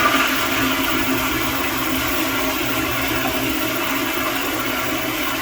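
Sloan flushometer toilet flushing: a steady, loud rush of water through the freshly replaced vacuum breaker assembly.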